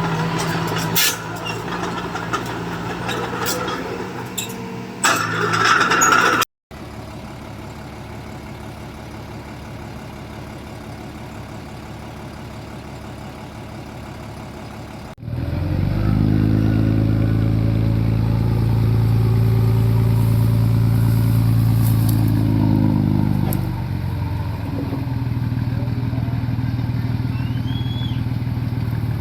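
Diesel engine of a small Komatsu D20P bulldozer running, in several cut-together stretches. A brief dropout comes about six seconds in and is followed by a quieter steady stretch. About halfway through the engine comes in much louder under load, then eases to a lower steady level for the last few seconds.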